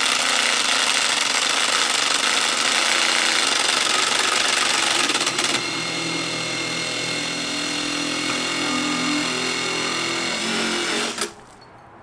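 Cordless impact driver spinning a car water pump converted into a drill-driven sump pump, with water gushing from its outlet pipe. It runs for about eleven seconds, settles into a steady whine about halfway through, and stops suddenly near the end.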